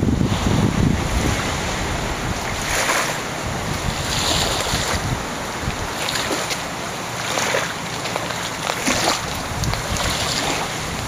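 Wind buffeting the microphone in uneven gusts, with a rushing, rumbling noise and brief louder swells, over the rustle of palm fronds and dry brush.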